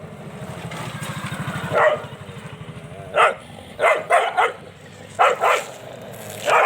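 Street dogs barking in short, sharp barks, several in quick succession through the middle and end. A low, evenly pulsing engine sound runs underneath for the first couple of seconds.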